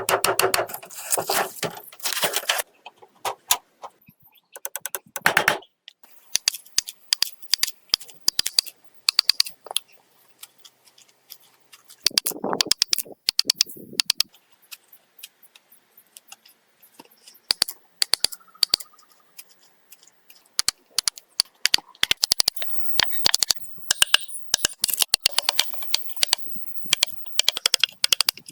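Irregular sharp clicks and clattering, with a few longer noisy bursts in between.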